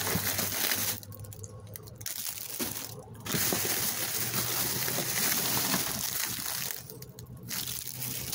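Plastic trash bags rustling and crinkling as a hand rummages through them. The rustling comes in stretches with short pauses between.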